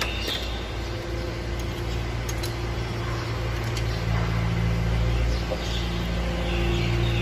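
A machine or engine running steadily with a low hum. Over it come a few light metal clicks in the first couple of seconds, as tools work the valve rocker-arm adjusters on a cylinder head.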